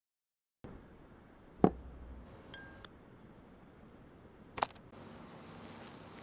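After a brief silence, a few sharp clicks of kitchen tongs against a stainless steel bowl as a cube of butter is set into hot steamed dough. The loudest click comes about a second and a half in, and another comes near the end, with a short metallic ring between.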